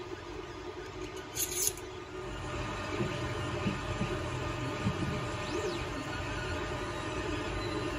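Steady mechanical hum and whine of small electric motors: a slow geared motor turning the rotor plates of a home-built air-variable capacitor, with a 3D printer's motors running in the background. A short sharp click comes about a second and a half in, and the low hum grows louder about two seconds in.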